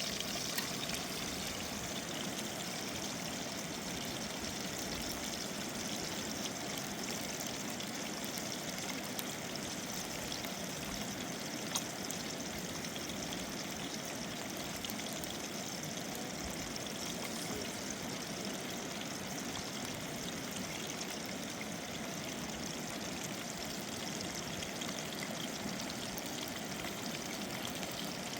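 River water rushing steadily, with one faint click about twelve seconds in.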